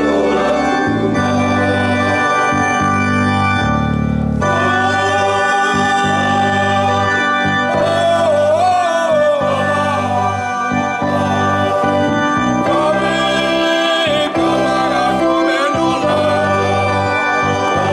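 Men's choir singing a hymn in harmony, one voice close on a microphone, over held organ-like keyboard chords.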